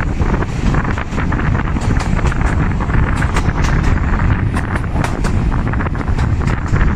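Wind buffeting the microphone held out of a moving railway carriage's window, over the steady rumble of the train running on the track, with irregular sharp clicks from the wheels and rails.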